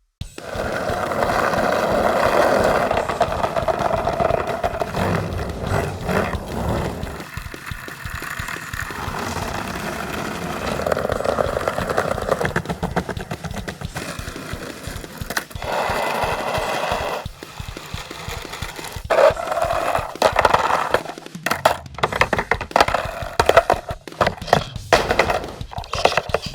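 Skateboard wheels rolling, a continuous rumble whose texture shifts several times as the surface changes. From about two-thirds of the way in it gives way to a rapid series of sharp board clacks, impacts and scrapes.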